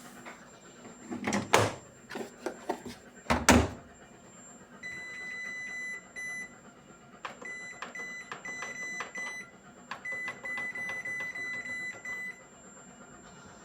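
Two loud knocks about one and a half and three and a half seconds in. Then the Hisense WF1Q8041BW washing machine's control panel beeps as its programme and options are set and it is started: a long electronic beep, then a run of short beeps with small button clicks between them.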